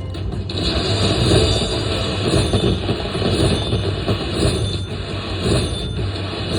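Slot machine's bonus-round sound effects during a spin, over a dense steady casino din.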